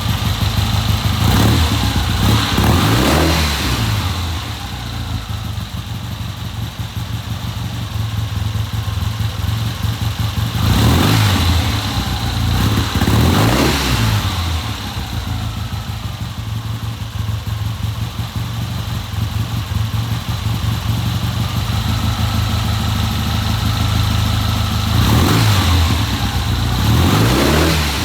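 1970 Triumph motorcycle engine running on a newly fitted Premier carburettor, idling steadily and revved up and back down several times, the revs rising and falling in pairs of blips.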